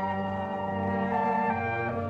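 Orchestral music bridge in a radio drama: brass and woodwinds holding sustained chords that shift to new chords about two-thirds of the way through.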